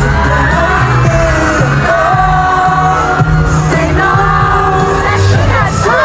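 Pop song played loud over an arena sound system, a group singing live over the backing track.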